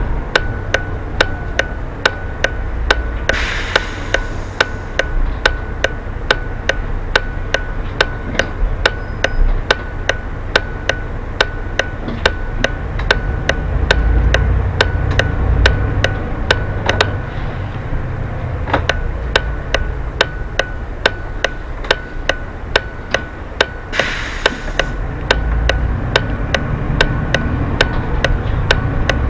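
Low rumble of a city bus's engine and tyres heard in the driver's cab, under a steady rapid ticking of about two to three ticks a second. Two short bursts of hiss come in, the first a few seconds in and the second near the end.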